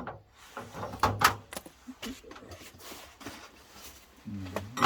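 Workbench handling sounds while working on a cordless tool battery pack. There is a quick run of sharp clicks and knocks about a second in, then lighter rubbing and scraping.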